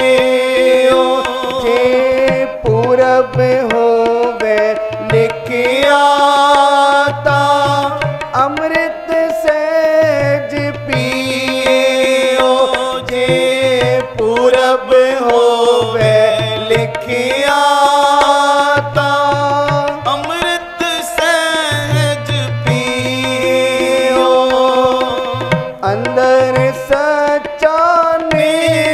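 Devotional kirtan: harmoniums playing a sustained melody under men's singing voices, with tabla keeping a steady rhythm with its deep bass strokes.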